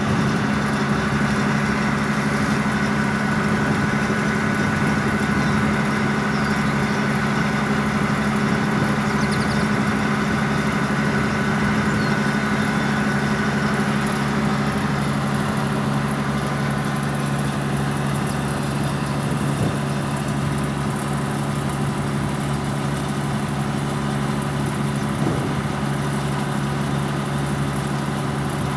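Farm machinery engine running at a steady speed, with a faint high whine that fades out about halfway through.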